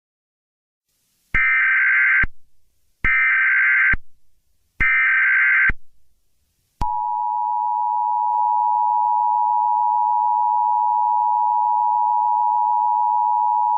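Emergency Alert System tones: three short, evenly spaced bursts of screechy SAME header data, then the steady two-tone EAS attention signal starting about seven seconds in.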